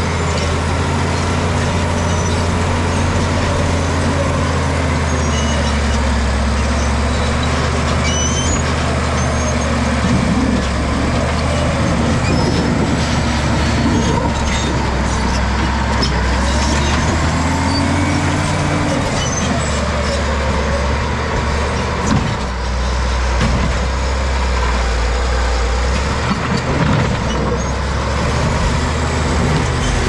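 Caterpillar D7G bulldozer's diesel engine working hard as the blade pushes rock and earth, its note sagging and recovering with the load. Occasional knocks from rocks and steel are heard in the second half.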